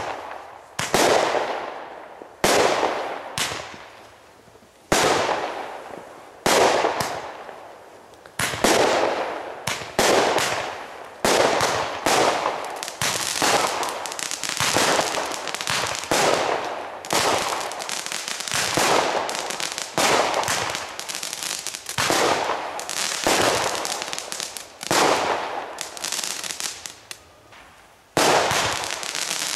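Consumer firework batteries (cakes) firing a long string of shots, each a sharp bang that trails off. The shots come about one a second at first, then crowd closer together, with a short lull before another loud bang near the end.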